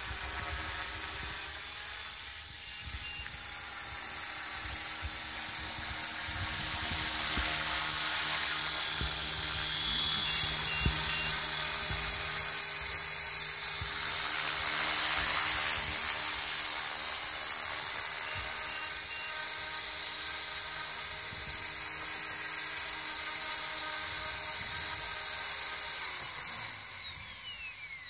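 Align T-Rex 450 Pro DFC radio-controlled electric helicopter flying close and hovering: a high, steady whine from its brushless motor and drivetrain with the buzz of the rotor, growing louder as it comes in. About two seconds before the end the motor cuts and the whine falls away in pitch as the rotor spools down after landing.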